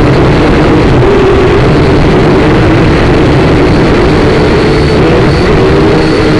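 SYMA quadcopter's small electric motors and propellers whining steadily, loud and close as picked up by the drone's own onboard camera, with the pitch wavering slightly.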